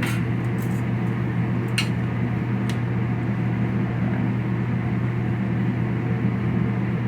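Steady low mechanical hum, like a kitchen exhaust fan, over the hiss of a corn tortilla frying in hot canola oil under a metal ladle; a few light clicks sound in the first three seconds.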